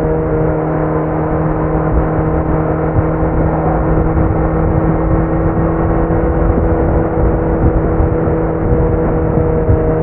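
Kawasaki Z900's inline-four engine through a Leo Vince muffler with no dB killer, running at a steady engine speed while the motorcycle is ridden. The note holds level, with only a slight drift in pitch.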